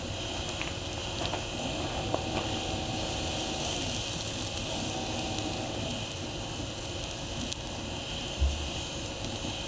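Deer neck sizzling as it sears on a steel grill grate over a mesquite wood fire, with the fire crackling. A low bump sounds near the end.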